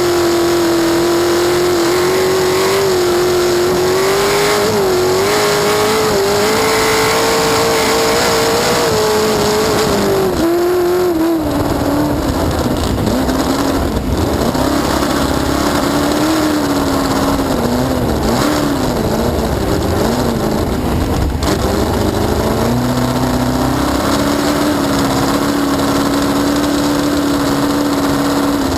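Cracker box race boat's inboard V8 engine running hard under way. Its pitch holds high, drops about ten seconds in, wavers up and down through the middle as the throttle is worked, then steadies near the end.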